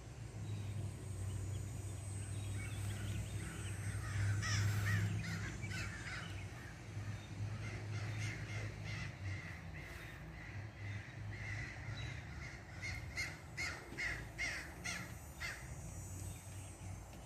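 Crow cawing in two runs of quick harsh calls, one about three to six seconds in and another from about twelve seconds, over a low steady hum.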